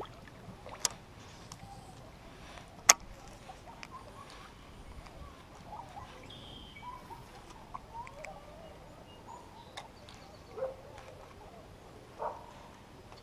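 Birds calling now and then around a lake, faint chirps scattered throughout. Two sharp clicks cut through, a small one under a second in and the loudest sound of all about three seconds in.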